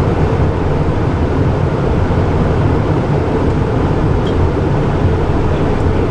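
Steady cockpit noise of a Cessna Citation Encore business jet in flight: constant airflow rush and turbofan engine drone, heavy in the low end.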